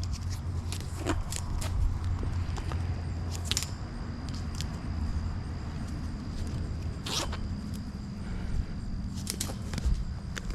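Nylon cable ties being zipped tight around cattle panel wire: a few short ratcheting zips and scrapes, seconds apart, over a steady low rumble.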